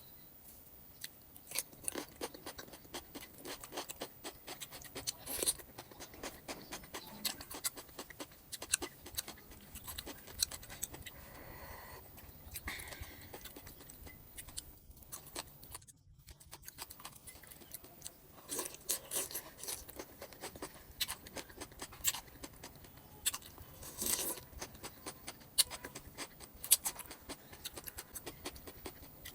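A person biting and chewing raw vegetables, with many irregular sharp crunches.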